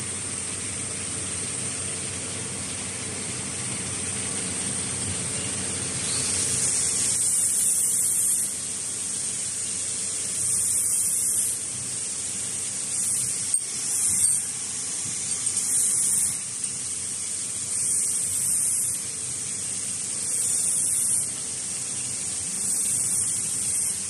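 Workshop machinery: a steady hiss with a high whine. From about six seconds in, bursts of louder hiss come every two to three seconds, and there are a couple of sharp clicks near the middle.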